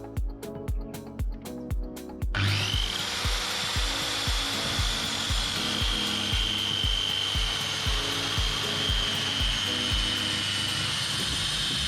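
Background music with a steady beat. About two seconds in, a power saw starts and runs steadily, cutting through a panel.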